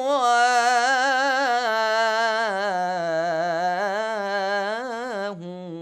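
A man's solo voice chants an Arabic dawn supplication (du'a) in the religious ibtihal style. He draws out one long, ornamented melisma, his pitch winding up and down, then closes the line on the word 'siwāh' near the end and breaks off.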